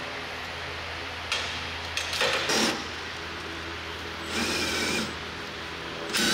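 Cordless power tool whirring in three short bursts while the bolts of a coilover strut are driven; the last burst is a higher, steadier whine. A steady low hum runs underneath.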